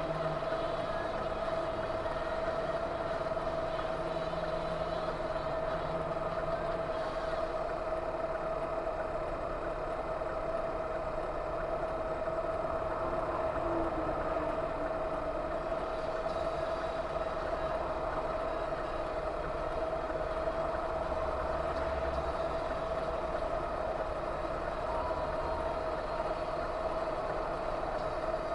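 Steady vehicle driving noise, a car or truck on the road heard from inside, with a constant hum running through it and no impact.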